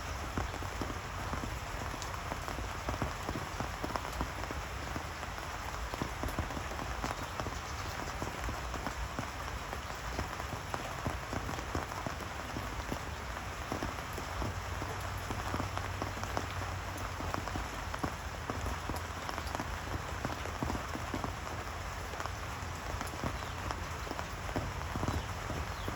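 Steady rain falling on a surface, with many separate drop hits.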